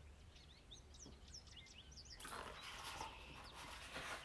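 Faint chirping of a small bird in the background, and from about halfway in, the rustle of the pages of a hardcover picture book being turned and handled.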